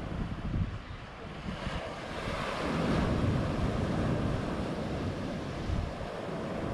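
Ocean surf breaking and washing up the beach, with wind buffeting the microphone. A wave's wash swells loudest from about two seconds in, then eases.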